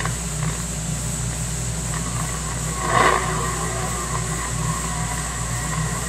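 CB radio receiver on channel 6 putting out open-channel static and a low rumbling buzz between transmissions, with a brief squawk about three seconds in.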